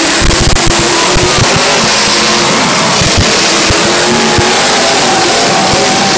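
Monster truck engines running and revving loudly in a stadium.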